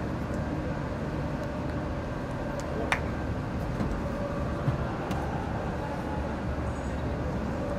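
Steady low outdoor rumble, with a few short sharp knocks. The loudest knock comes about three seconds in.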